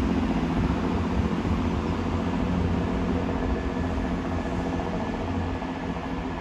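Diesel engines of a GWR Networker Turbo diesel multiple unit running with a steady low drone that slowly fades, as the unit pulls away from the station.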